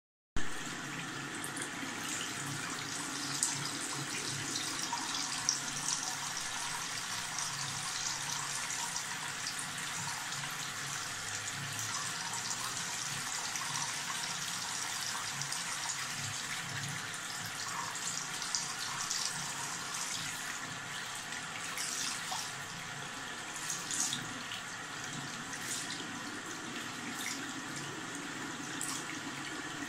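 Tap water running steadily into a sink basin and down the metal drain, with a few brief louder splashes.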